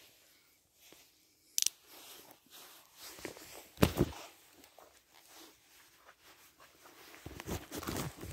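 Irregular rustling and crunching. The loudest crunch comes about four seconds in, with a cluster of them near the end.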